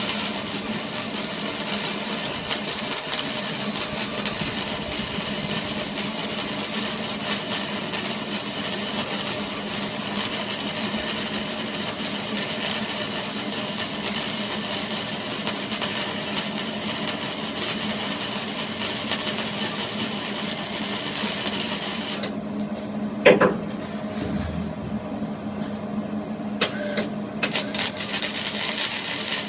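A machine running steadily with a constant hum. A sharp knock comes about 23 seconds in and a smaller click a few seconds later.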